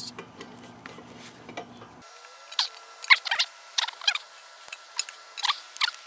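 Faint metallic clicks of bolt cutters working at a bike lock. About two seconds in, the sound jumps to fast-forwarded audio of the same work: short, high-pitched squeaky chirps and clinks, about two a second.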